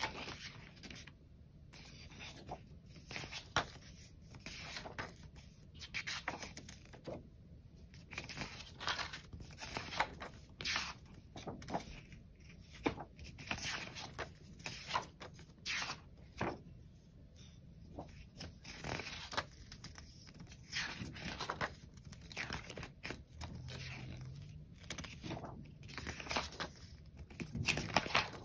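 Paper and plastic merch packaging being handled: irregular short rustles, some longer and louder than others, with quiet gaps between.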